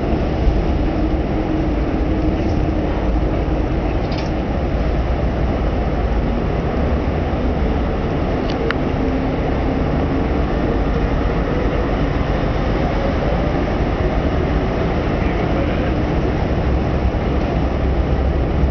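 Steady, loud low rumble of engines, with a faint engine tone that slowly rises in pitch through the middle.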